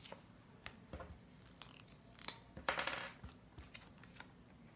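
Handling noises as a card flashcard is taken off a small whiteboard and put down: a few light clicks and taps, and a short scraping rustle about three seconds in.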